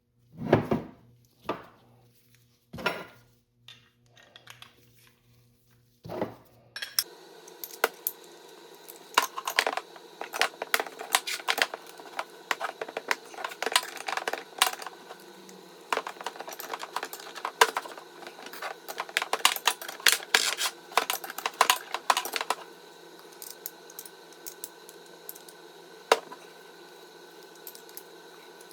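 Small metal parts and tools clinking and tapping against each other: a few separate knocks, then, over a steady background hum that starts about seven seconds in, a long run of rapid clinks that thins out to occasional ticks near the end.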